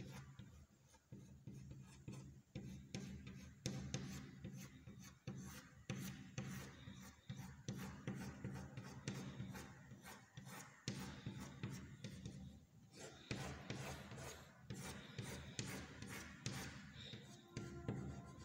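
White chalk scraping across a chalkboard in many quick, short strokes as lines and hair are drawn in.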